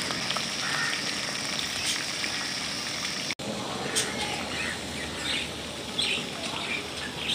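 Hot oil sizzling steadily as prawns deep-fry in an iron kadai. About three seconds in there is a sudden cut, and the sizzle gives way to a quieter background with a few short bird chirps.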